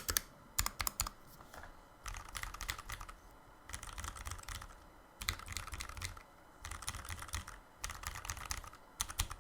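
Typing on a custom mechanical keyboard, a Novel Keys NK65 Entry Edition with lubed and filmed Zealios V2 tactile switches and GMK keycaps. A few separate keystrokes come first, then several runs of fast typing, each about a second long, with short pauses between them.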